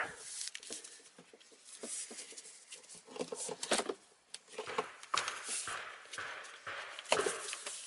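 Handling noise from a steel tape measure and a rubber drive belt being shifted along each other by gloved hands: irregular rustling with scattered small clicks.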